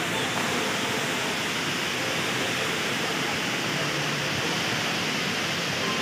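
Indoor waterfall: water falling from several storeys high in a steady, even rush.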